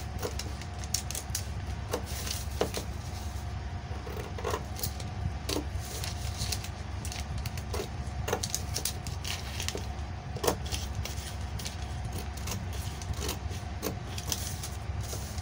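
Scissors cutting through brown pattern paper: a run of short, irregular snips, over a steady low hum.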